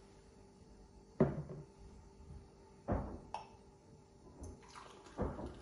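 A drinking glass and a blender jug knocking and clinking against a kitchen countertop as they are handled and set down: four sharp knocks, the one about a second in the loudest, with a brief rustle of handling near the end.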